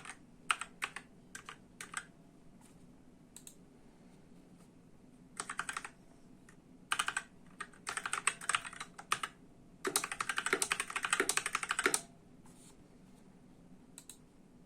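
Typing on a ZET GAMING Blade PRO mechanical keyboard with Kailh Red linear switches. Single keystrokes come first, then short bursts of typing, then a fast two-second run of keystrokes about ten seconds in, and a couple of lone clicks near the end.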